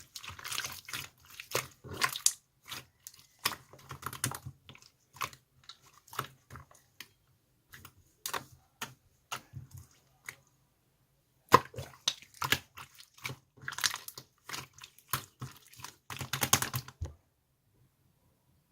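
Slime being squished and pressed, giving quick irregular clicks and crackling bubble pops in clusters, with a short pause partway through. The clicking stops near the end.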